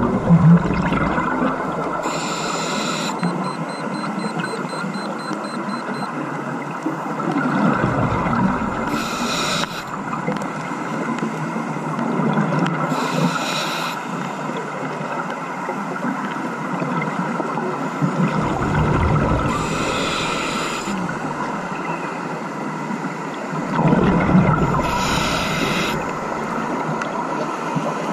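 Scuba diver breathing through a regulator underwater, heard over a steady underwater rush: short hissing breaths come every few seconds, with low bubbling rumbles of exhaled air between them.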